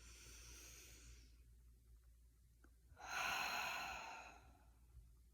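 A woman's breaths at close range: a soft breath at the start, then a louder, longer sighing breath about three seconds in.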